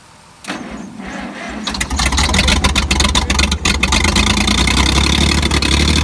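Early-1960s Dynahoe backhoe's spark-ignition engine, quiet at first, picking up about half a second in and running loud and hard from about two seconds in as it drives the hydraulics to raise the stabilizer legs.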